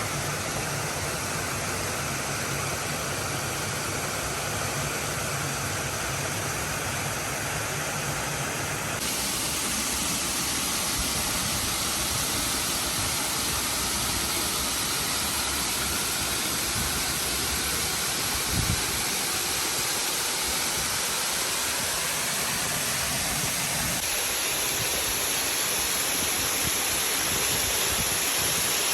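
Waterfall: a steady, loud rush of falling water whose tone shifts abruptly twice, about a third of the way in and again near the end. A brief low thump comes a little past the middle.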